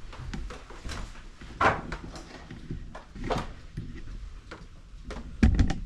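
Scattered knocks and thumps of things being moved or bumped in a small room. A few single knocks, then a louder quick cluster of three or four near the end.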